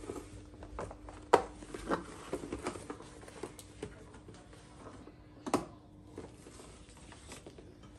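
Plastic lunch box lids being handled and pressed shut: scattered clicks and knocks, the sharpest a little over a second in, again just under two seconds in and about five and a half seconds in, over a faint steady hum.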